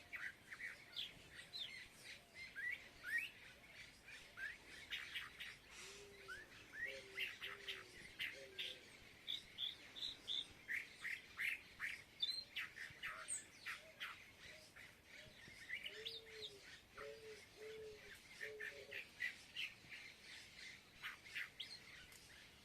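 A flock of small birds chirping busily, with many short overlapping calls. Twice, a lower bird call repeats several times in a short run: once around seven seconds in and again around sixteen to nineteen seconds in.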